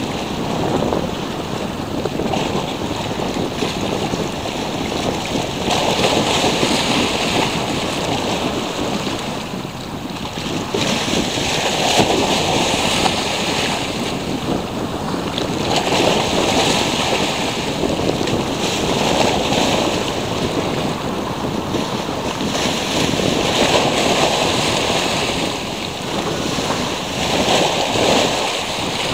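Tyrrhenian Sea waves breaking and washing, swelling in surges every four to five seconds, with wind rumbling on the microphone.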